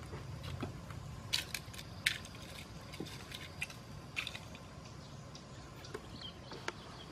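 Scrapes and cracks of a person climbing a thin tree trunk, hands and feet gripping the bark: irregular sharp strokes, the loudest about a second and two seconds in, over a low steady rumble.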